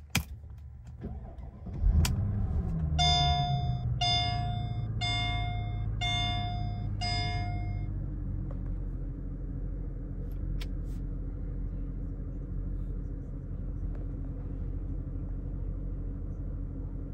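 Mercedes-Benz SL500's 5.0-litre V8 cold-starting: a short crank, then it catches about two seconds in with a flare of revs that falls away into a steady idle. Five evenly spaced dash warning chimes, about one a second, sound over the first seconds of idle.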